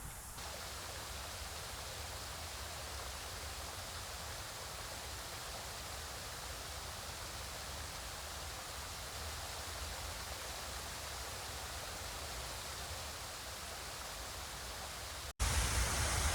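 Small man-made park waterfall, a steady rush of falling water. Near the end it breaks off for an instant and comes back louder.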